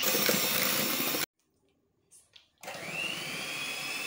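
Electric hand mixer beating eggs, sugar and cake emulsifier, its motor whine rising as it comes up to speed. It cuts out suddenly about a second in, then starts again, rises and runs steadily.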